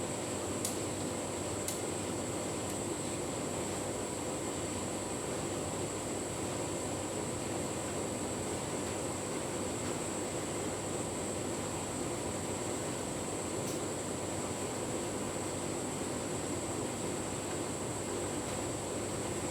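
Tumble dryer running steadily on a cottons cycle with a full load of bedding: an even motor-and-drum whir with a thin high whine over it, and a couple of light clicks about a second in.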